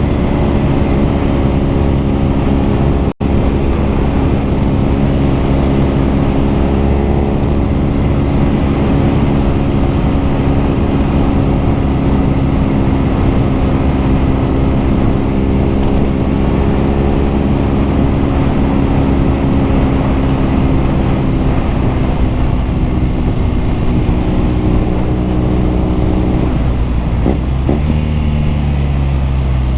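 BMW R nineT's 1170 cc boxer-twin engine and exhaust running steadily while the motorcycle is ridden, with the engine note changing briefly near the end. The sound cuts out for an instant about three seconds in.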